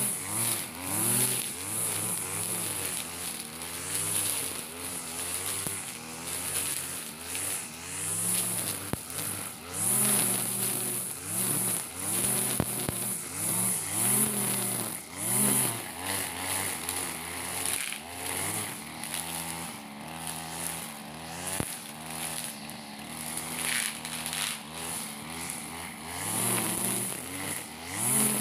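Backpack brush cutter's small engine running under load, its pitch rising and falling every second or two as it cuts through long grass.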